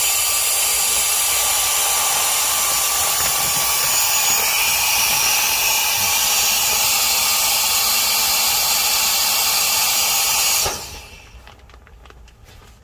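Handheld mini camping blower running steadily, a hissing rush of air as it inflates a backpacking air mat through the mat's valve; it cuts off about eleven seconds in, followed by faint clicks and rustling from handling the mat's valve.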